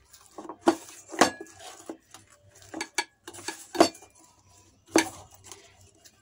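Stainless steel bowl knocking and clinking irregularly as pizza dough is mixed and kneaded by hand in it: a few sharp clanks a second or so apart, with softer knocks between.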